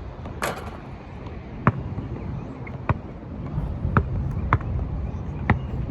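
A basketball bouncing on a hard outdoor court, about five sharp thuds at uneven spacing, with one brief hissing burst about half a second in. Wind rumbles on the microphone throughout.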